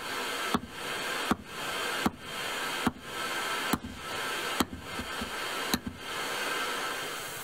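Hammer blows on the end of a wooden axe handle, driving the axe head and its wedge home to hang the head: about seven sharp knocks a little under a second apart, stopping about six seconds in, over a steady background hiss.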